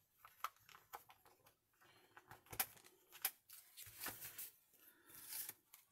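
Faint scattered taps and clicks of clear stamps, an acrylic stamp block and an ink pad being handled on a craft desk.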